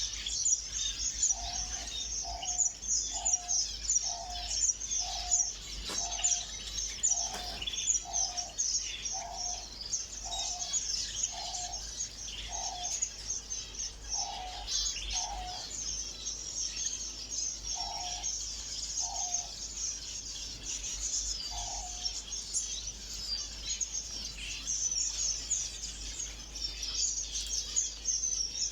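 A flock of small cage birds chirping and twittering without pause. A lower, short call repeats about once a second, then stops about three quarters of the way through.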